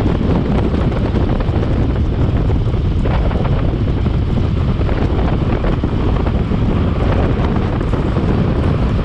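Wind buffeting the microphone: a loud, steady, low rumbling noise with no distinct events.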